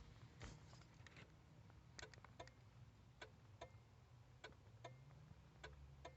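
Faint, uneven clicking from a 1993 Buick Regal's turn signal flasher, some clicks in close pairs, over near silence.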